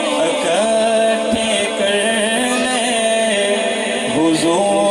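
A man singing a naat into a microphone, holding long wavering notes with melodic ornaments between syllables.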